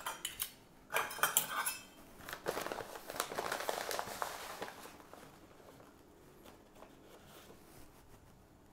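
Dry steel-cut oats rattling out of a bag into a metal measuring cup, with the bag crinkling and a few clinks of the cup. The dense pattering fades out about five seconds in.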